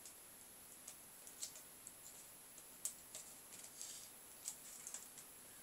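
Faint, scattered small clicks and ticks from a soldering iron tip working against the pins of a CRT TV flyback transformer as it is heated and pulled from the circuit board.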